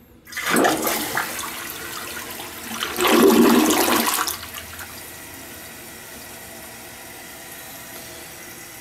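American Standard Optum VorMax toilet flushing, with a jet swishing water around the bowl. A rush of water starts just after the beginning, surges loudest about three seconds in as the bowl empties, then settles into a steady, quieter running of water.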